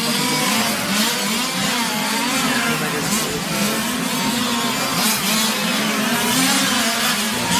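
Several 1/5-scale GT radio-controlled cars' small two-stroke petrol engines running at once, revving up and dropping back as they lap, their pitches rising and falling over one another.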